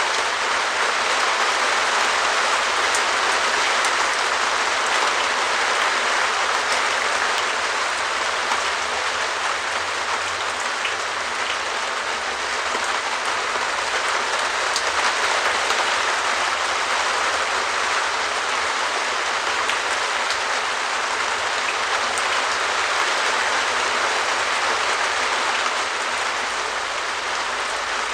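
Steady rain pattering on a translucent perspex shed roof: a dense, even hiss of many small drop hits.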